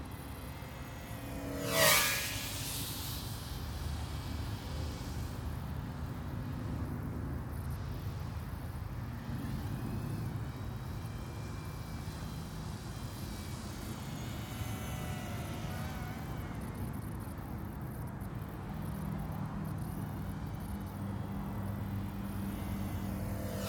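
FPV racing quadcopters flying a gate course. One passes close by about two seconds in, its motor whine dropping in pitch as it goes past. Between passes, drone whine wavers at a distance, and another quad passes close near the end.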